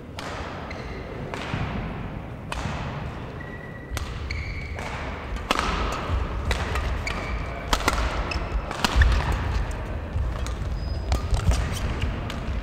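Badminton rally: rackets striking the shuttlecock with sharp cracks about once a second, mixed with short shoe squeaks and footfalls on the court floor, echoing in a large sports hall.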